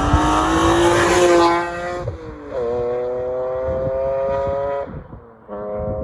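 BMW E46 M3's S54 straight-six running under throttle, its pitch rising over the first second and a half. The sound then falls away twice, near two and five seconds in, each time coming back at a steady pitch, as with throttle lifts or gear changes.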